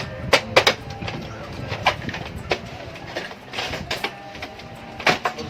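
Sharp plastic clicks and snaps, about half a dozen spread over a few seconds, as the left side cover of a Brother DCP-L2540DW printer is pried off its latches.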